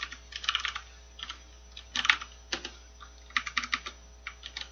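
Typing on a computer keyboard: quick runs of keystrokes broken by short pauses, with a couple of louder key presses about two seconds in.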